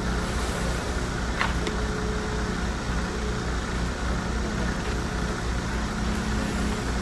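A motor engine running steadily at an even, low pulsing drone, typical of the heavy machinery running on a concrete pour.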